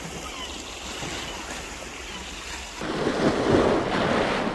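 Sea waves washing against a rocky shore, with wind on the microphone; a louder surge of wash starts suddenly about three seconds in.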